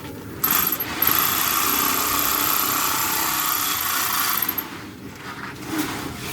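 A handheld electric bag-closing machine stitching the top of a grain sack. It starts about half a second in, stops briefly, then runs steadily with a thin high whine for about three and a half seconds before cutting off.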